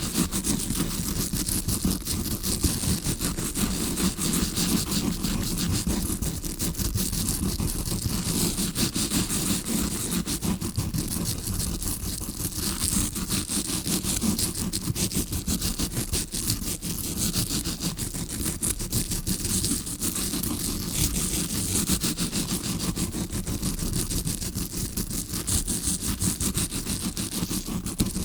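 Tawashi scrubbing brush rasped directly against a recorder's microphone in rapid, continuous scratching strokes, imitating ear cleaning as heard from inside the ear.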